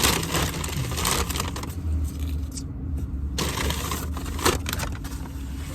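Rustling and scraping of takeout packaging being handled in several short bursts, over a steady low hum.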